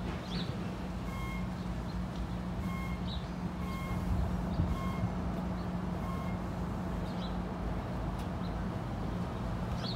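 Passenger trains standing at a station platform: a steady low engine hum, with a short two-tone beep repeating about once a second from about a second in.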